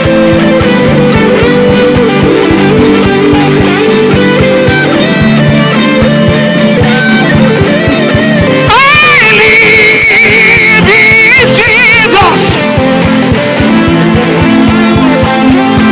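Live worship band music led by guitar, held chords over a steady beat. About nine seconds in, a high, wavering melody line rises over the band and drops away some three and a half seconds later.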